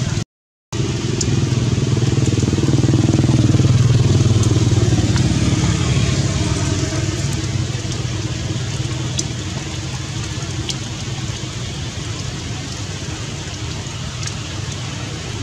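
A motor engine's low rumble swells a couple of seconds in and then slowly fades, over a steady hiss of falling rain with a few faint ticks.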